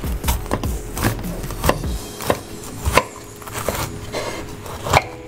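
Chef's knife cutting through a bitter melon on a wooden cutting board: a series of irregular knocks of the blade on the board, about two a second.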